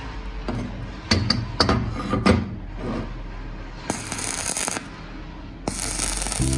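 Metal parts clinking and knocking as they are handled, a quick run of sharp clicks, followed by two harsh noisy bursts about a second long each.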